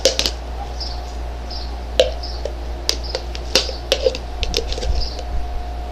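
Homemade slime being squished and pulled in the hands, giving scattered sticky clicks and small pops at irregular moments.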